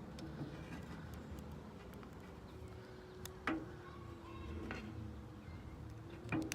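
A few faint, sharp clicks from a combination bike lock being handled, over low room hum.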